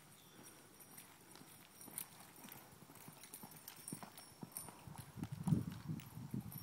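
Hoofbeats of a 2009 gray Quarter Horse filly loping under saddle on soft arena dirt. The thuds are faint at first and grow louder and heavier from about four and a half seconds in.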